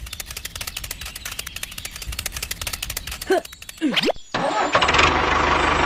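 Fast, even ticking, then a short sliding sweep in pitch down and back up. About four and a half seconds in, a small motor starts and runs steadily with a whine.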